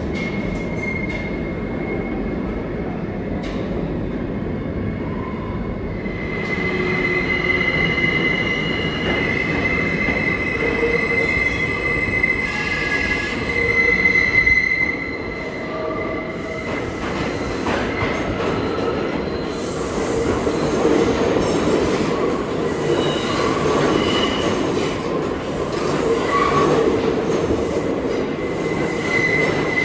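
New York City subway train moving through a station with a steady rumble, its steel wheels squealing on the rails in high drawn-out tones that come and go.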